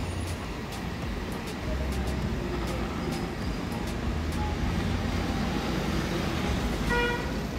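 Street traffic with a steady low rumble of passing vehicles, and a short high beep about seven seconds in.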